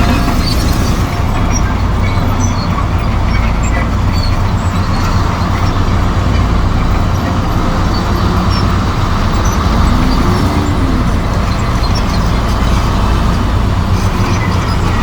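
Komatsu D58E bulldozer's diesel engine running steadily, with a brief whine that rises and falls about ten seconds in.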